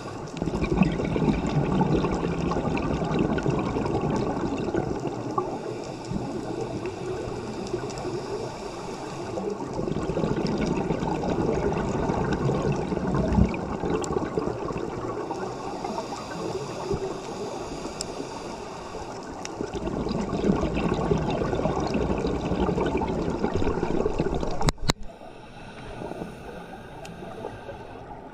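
Water flowing and gurgling in a steady, uneven rush. A sharp click about 25 seconds in is followed by a quieter stretch of the same kind of sound.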